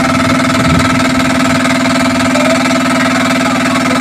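A small engine running steadily at idle: an even, unchanging drone with a fast, regular pulse.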